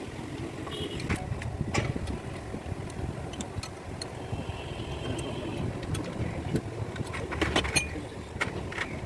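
An engine running steadily with a low rumble, with scattered sharp metal clinks and taps of tools on metal, and a brief high ringing tone about halfway through.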